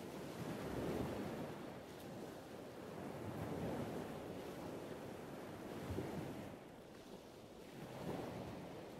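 Wind and distant ocean surf on an open coastal bluff, a steady rushing noise that swells and eases every two or three seconds.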